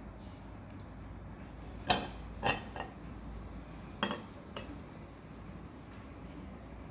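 Small glass jars of water clinking and knocking against a glass bowl and tabletop as they are handled: three knocks about two seconds in and two more about four seconds in.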